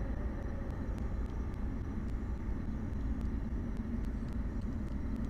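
Falcon 9 rocket's first stage, nine Merlin 1C engines at full power in climb, heard as a steady low rumble.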